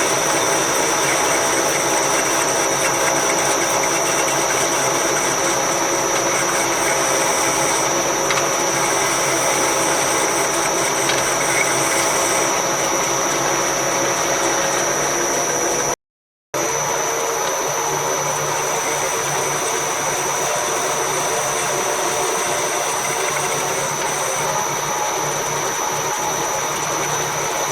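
Progres 380 metal lathe running steadily with a constant high whine, turning a steel adapter plate with interrupted cuts. The sound drops out for about half a second roughly midway, then resumes.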